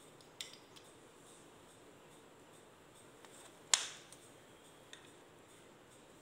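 Strips of a subtraction strip board being put back in place by hand, clicking lightly against each other: a small click about half a second in, one sharper knock just under four seconds in, and a faint tap near five seconds.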